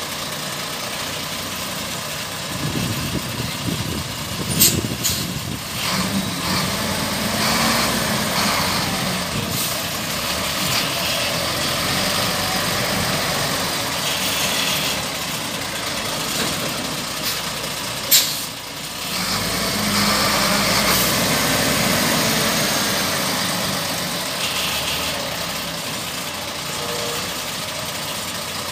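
Zoomlion QY50 truck crane's diesel engine running steadily, speeding up twice while the crane works, with two short sharp sounds, about five and eighteen seconds in.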